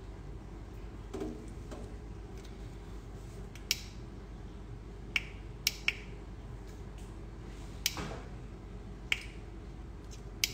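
Portable blender bottle being handled and tried: about seven sharp plastic clicks at uneven intervals, and no motor running. The blender fails to start.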